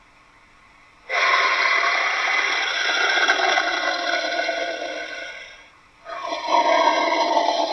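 Two homemade dinosaur roar sound effects. The first starts suddenly about a second in and slowly fades out; the second starts right after it and keeps going.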